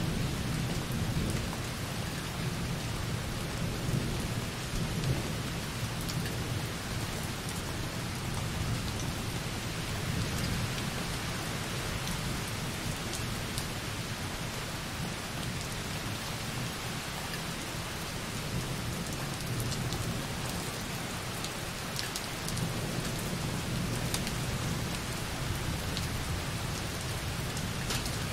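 Light rain falling softly on a window: a steady hiss with single drops ticking now and then. Under it, low distant thunder rumbles, fading through the middle and swelling again near the end.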